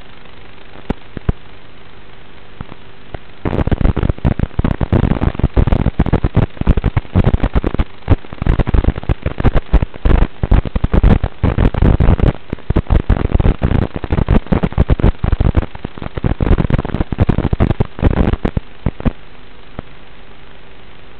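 Analog FPV video receiver's audio channel hissing with a faint steady hum. From about three and a half seconds in until near the end it breaks into loud, dense crackling and popping static, the sign of the quad's video signal breaking up as it flies low behind the trees.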